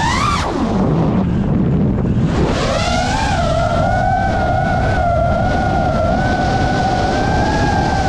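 FPV racing quadcopter's brushless motors whining. The pitch drops steeply in the first second as the throttle is cut, climbs back up about two and a half seconds in as the throttle is opened again, then holds a fairly steady high whine as the drone skims low over the grass.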